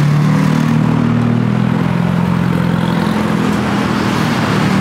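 Motor vehicle engine running close by, a low steady drone that weakens a little after the middle, over street traffic noise.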